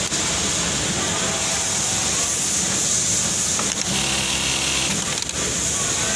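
Steady noisy hum of a sewing workroom. About four seconds in, a JUKI DDL-8100B-7 single-needle lockstitch machine runs for about a second, stitching a pocket edge through its folder attachment.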